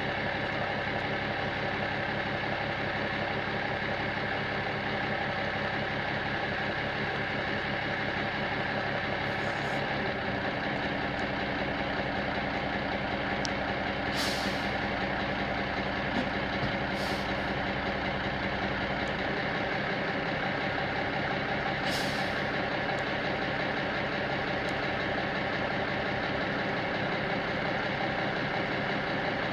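Military 6x6 truck's engine idling steadily, its tone shifting about a third of the way in and again past the middle. Four short air hisses come from the truck's air brake system.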